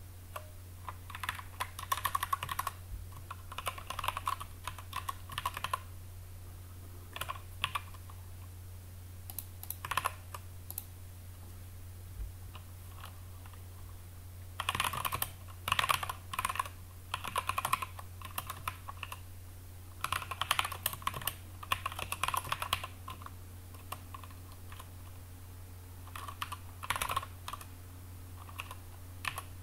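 Typing on a computer keyboard: bursts of rapid keystrokes with short pauses between them, over a steady low hum.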